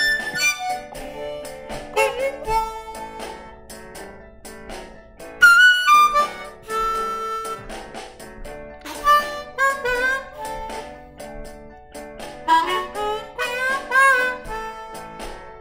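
Harmonica played blues-style, cupped in both hands: a run of held notes and short tongued attacks, with bent notes that swoop down and back up in pitch a little past the middle and again near the end.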